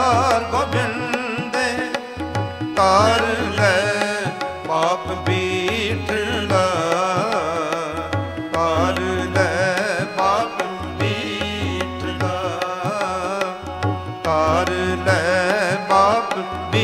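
Sikh Gurbani kirtan: a male voice sings long, wavering melodic runs without clear words, over steady held accompaniment notes and a running tabla rhythm.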